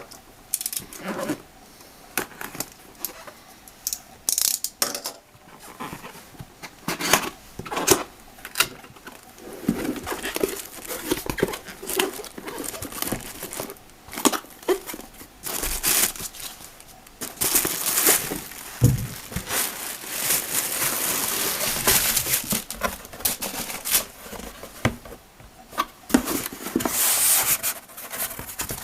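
Packaging being handled and opened during an unboxing: a run of crinkles, scrapes and light knocks, with a longer stretch of steady rustling a little past halfway.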